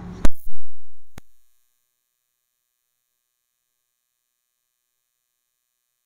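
A sharp click and a brief loud low thump that fades out within about a second, a second click, then dead digital silence: an editing cut in the audio track.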